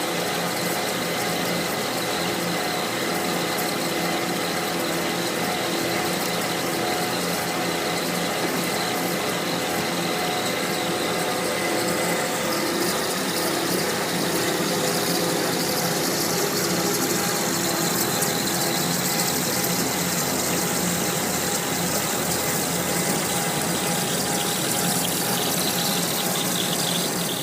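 CNC machine tool running steadily: a continuous mechanical drone with several steady tones under a hiss, the upper hiss changing about halfway through.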